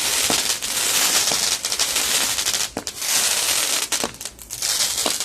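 Dominator 'Terrible Night' firework going off with a dense, loud crackling hiss. It comes in long sprays that briefly dip about three seconds in and again near the end, with a few sharp pops mixed in.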